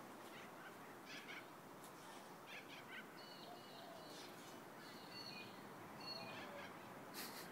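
Faint bird chirps and calls, scattered short high notes with a few lower ones, over a quiet background hiss.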